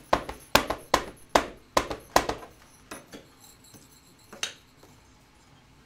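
A small plastic-cased ink pad tapped quickly and repeatedly onto a clear stamp to ink it in red, about three sharp taps a second for the first two and a half seconds, then a few scattered taps.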